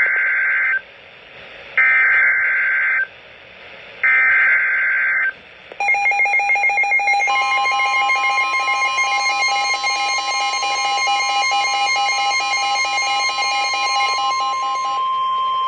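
Emergency Alert System broadcast tones: three short bursts of warbling digital header data (SAME tones), each about a second long with a pause between. About six seconds in comes a long, steady, shrill attention signal of several held tones that pulses rapidly at first.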